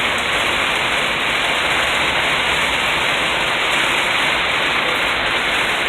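Heavy rain coming down hard on a Jeep, heard from inside the cabin as a steady, dense hiss of water on the roof and windshield.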